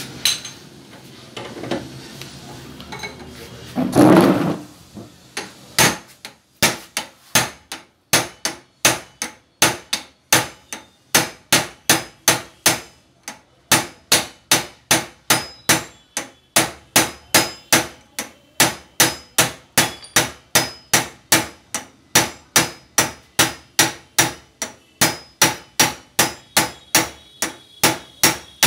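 Hammer blows on a steel pipe held against a shock absorber clamped in a vise: sharp metal-on-metal strikes at an even rhythm of about two a second, each with a short ring, starting about six seconds in. Before that there is clatter of the parts being handled, with one heavy clunk about four seconds in.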